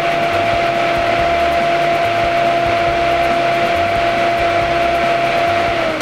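Jeep Cherokee XJ's stock electric cooling fan running with a steady hum, switched on by grounding its override wire. Near the end the hum falls in pitch and fades as the fan winds down.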